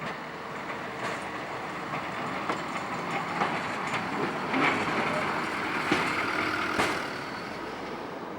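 Road-rail aerial work vehicle moving along the track, with a run of sharp knocks and clatter. It grows louder through the middle and fades near the end.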